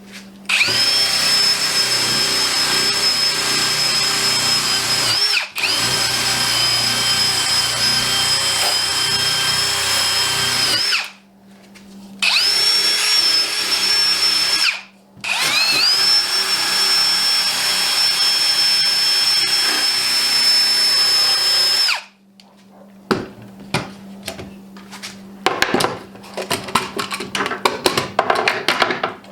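A drill spinning a brass wire wheel against the steel of a bar clamp, scrubbing dried wood glue off its sides. It runs as a steady high whine in four spells with short pauses between them. In the last seven seconds there are scattered clanks and knocks of the clamps being handled.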